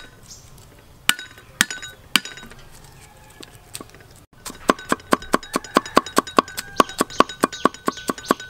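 Cleaver chopping garlic on a wooden chopping board. A few separate knocks come first as the cloves are split. About halfway through, fast steady chopping starts at about five strikes a second, each with a light metallic ring.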